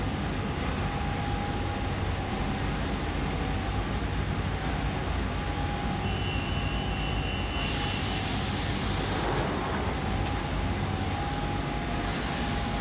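London Underground Central line 1992-stock tube train at a platform, its equipment giving a steady low rumble. About six seconds in a steady high warning tone sounds as the doors close, followed by a burst of air hiss. Near the end a second hiss comes as the train starts to pull out.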